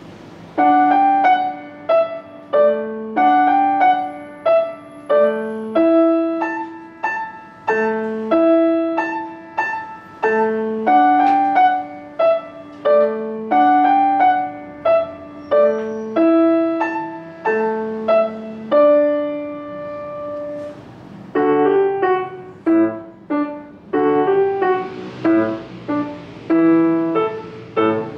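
Grand piano played solo: a blues piece of repeated bass notes under chords, beginning about half a second in. About two-thirds of the way through, a held chord dies away before the playing picks up again.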